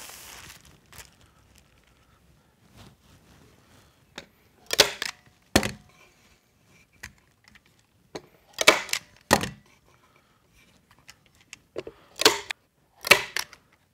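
Staple gun driving staples through polyfill batting into a plywood stool top: six sharp snaps in three pairs, a few seconds apart, with lighter handling taps between them and a brief rustle at the start.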